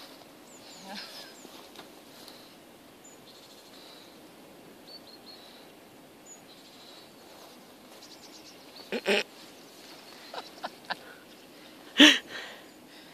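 A German Shepherd-type dog making a few short vocal sounds while playing on its back in the snow: a quick double sound about nine seconds in and a louder single one near the end, over a quiet background.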